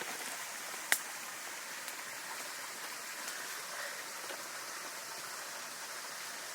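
Steady hiss of water, with one sharp click about a second in.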